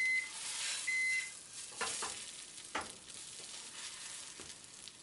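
Egg white sizzling in a frying pan while a spatula scrapes and folds it, with a couple of short scrapes later on. Two short beeps a second apart near the start, from a microwave oven signalling that its timer has finished.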